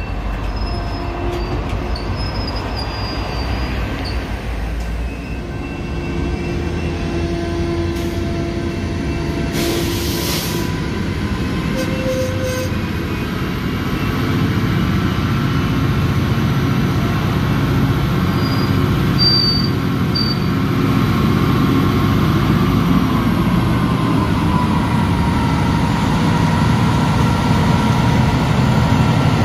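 Freight train with railroad cars rolling on the rails, wheels squealing, over a steady low diesel rumble. There is a short hiss of air about ten seconds in, and the sound grows louder in the second half.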